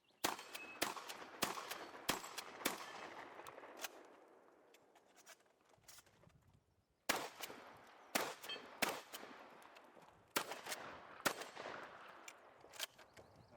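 Benelli Supernova pump-action shotgun firing a rapid string of shots, about one every half second to second. After a pause of about three seconds, it fires a second string.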